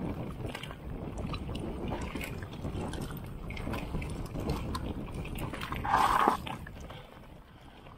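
Mountain bike rolling over rocky singletrack: a steady rush of tyre noise on stones with many small rattles and clicks from the bike, and wind buffeting the camera microphone. About six seconds in a short squeal is the loudest sound, and after it the noise dies down as the bike slows.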